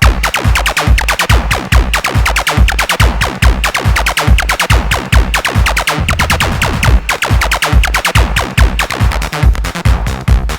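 Live techno played on hardware drum machines, samplers and synthesizers: a steady driving kick drum beat under busy hi-hats and synth lines.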